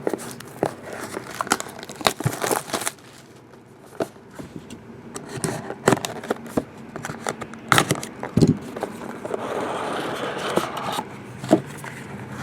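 A sealed trading-card box being opened by hand: plastic wrap and packaging crinkling and tearing, with scattered clicks and taps of cardboard handling and a longer stretch of crinkling about nine seconds in.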